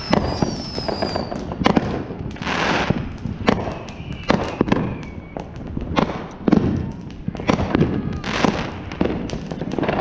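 Consumer fireworks going off in rapid, irregular succession: many sharp bangs and pops, a falling whistle in the first second or so, and two short hissing bursts, one a couple of seconds in and one near the end.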